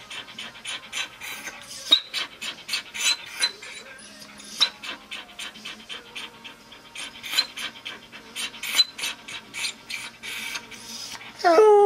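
Schnauzer panting rapidly in quick, short breaths; near the end it breaks into a loud, steady howl.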